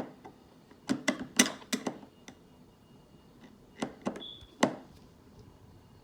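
Scattered sharp clicks and taps of a Torx screwdriver and screws on a 27-inch iMac's frame as screws are taken out: a cluster in the first two seconds and three more near the end, with a brief high squeak just after four seconds.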